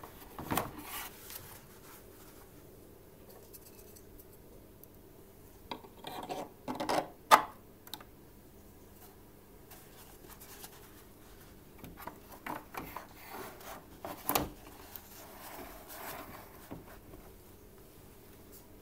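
A paper towel roll with a blue hub adapter being handled in a plastic electronic towel dispenser: scattered rubbing and scraping against the housing, with sharp clicks, the loudest about seven seconds in and another about fourteen seconds in.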